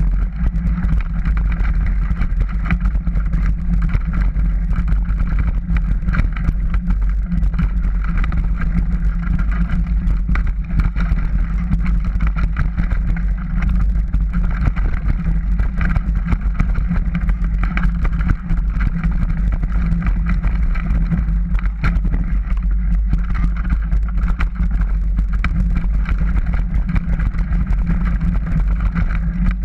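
Mountain bike riding fast down a dirt singletrack, heard from a camera mounted on the bike or rider: steady wind rumble on the microphone, with frequent rattles and knocks from the bike jolting over the rough trail.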